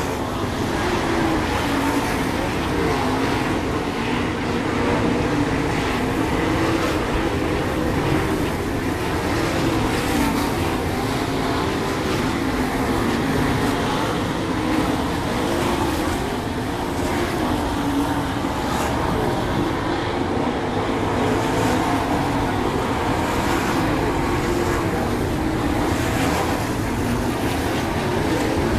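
A pack of 410 sprint cars racing on a dirt oval, their 410-cubic-inch V8 engines running hard at high revs. The engine pitch rises and falls continuously as the cars lap.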